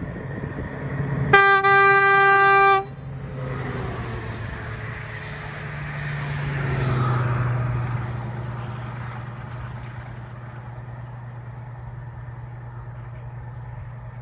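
Stuttgarter Rössle VT 12.5 (class 612) diesel railcar set sounding one blast on its Makrofon horn, about a second and a half long, then passing at speed with a heavy diesel engine sound. The engine note swells, drops in pitch as the train goes by, and fades away.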